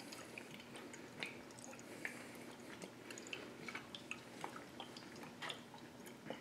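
Faint liquid sloshing in a glass wine bottle as it is tipped and swirled to mix in a drop of food colouring, with small scattered clicks and taps from hands on the glass.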